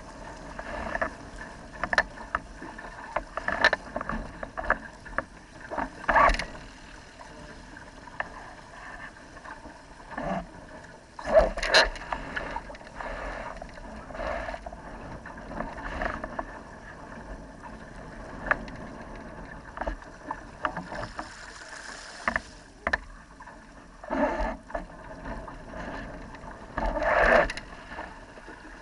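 Sailing dinghy moving fast under sail: water rushing and splashing along the hull, with irregular sharp slaps of waves against the bow, a few of them much louder.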